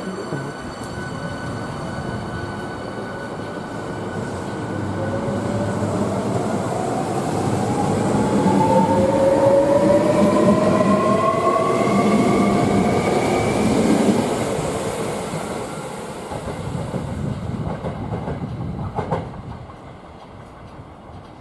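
Hankyu electric commuter train pulling away, its traction motors whining with a pitch that rises as it gathers speed over rail noise. The sound is loudest in the middle and fades away near the end.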